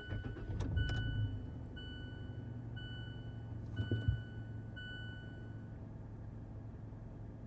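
Inside a Mazda CX-5: a few clicks, then a warning chime dinging about once a second for roughly five seconds over a steady low engine hum, with a knock about four seconds in.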